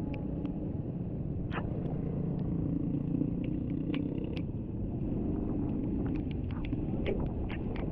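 Motorcycle engine running steadily while riding on a wet road, with tyre and road noise underneath and scattered sharp ticks of raindrops hitting the camera.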